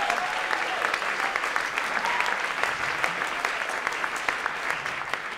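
Audience applauding and cheering at the end of a live song, dense clapping with a few whoops in the first couple of seconds, starting to thin out near the end.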